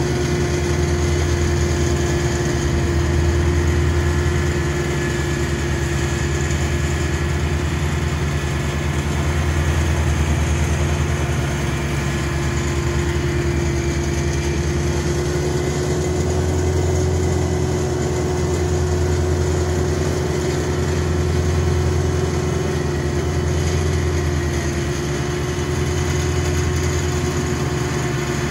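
John Deere 755 compact tractor's three-cylinder diesel engine running steadily under load while it drives a rear-mounted finish mower through tall grass. The sound swells and eases slightly as the tractor moves.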